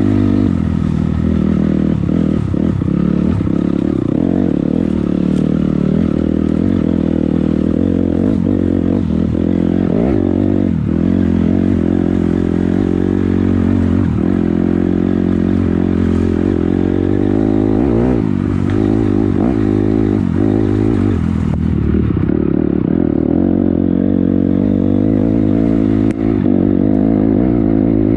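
Dirt bike engine running continuously as it is ridden on a trail, its pitch rising and falling repeatedly with the throttle.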